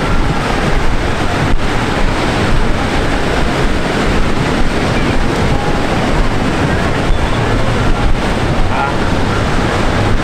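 Steady wind buffeting the microphone over the rush of surf breaking on a sandy beach.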